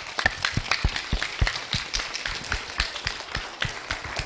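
Audience applauding, with one pair of hands close by clapping loudly and evenly about four times a second over the spread of clapping.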